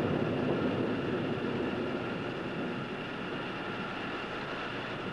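Steady rumble and hum of power-plant machinery, slowly fading.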